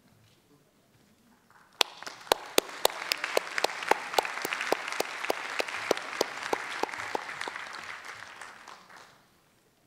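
Audience applauding. It starts about two seconds in, with one sharp nearby clapper standing out at about four claps a second. It swells and then dies away about nine seconds in.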